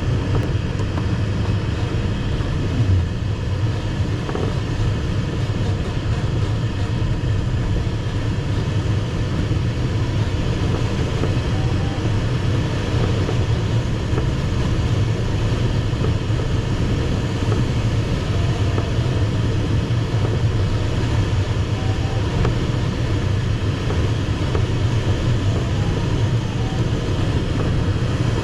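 Steady rush of airflow around the cockpit of an ASW 15 glider in flight, heavy in the low rumble.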